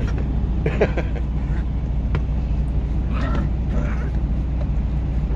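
Puppy playing with its chicken toy, giving two short high-pitched cries, about a second in and again around three seconds in, over a steady low hum in the truck cab.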